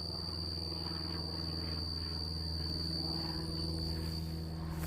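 Insects trilling in one steady, high, even tone that stops shortly before the end, over a low steady rumble.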